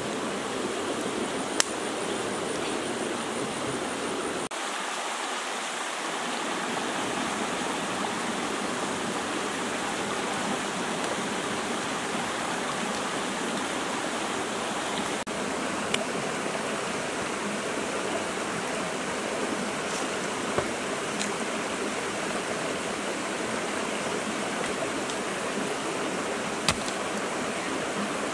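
Steady rush of a rocky stream, with a few single sharp clicks scattered through.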